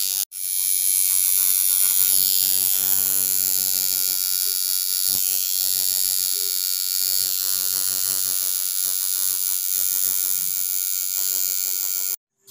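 Coil tattoo machine buzzing steadily as its needle colours in a tattoo on skin. It drops out for an instant just after the start and cuts off abruptly near the end.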